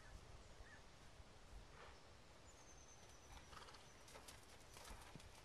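Faint hoofbeats of a horse walking on arena sand, a few soft, uneven steps in the second half.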